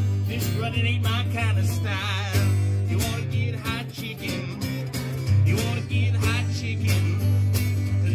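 A man singing a country-blues song live, accompanying himself on a strummed acoustic guitar.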